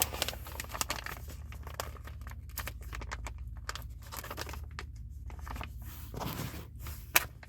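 Plastic microwave rice pouch being torn open at its notch to vent it, with crinkling of the plastic as it is handled, and a sharper click near the end.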